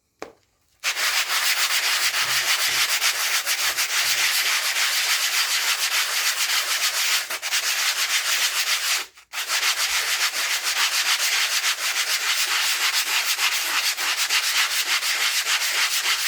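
Two abrasive sanding blocks rubbed grit-to-grit against each other in rapid strokes, making a continuous coarse scraping. It starts about a second in, stops briefly about nine seconds in, then resumes.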